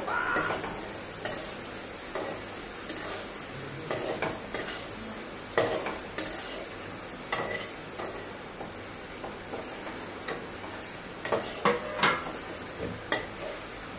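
Eggs with onion frying in oil in a kadai, a steady sizzle, while a metal spatula scrapes and taps against the pan at irregular intervals as the mixture is stirred.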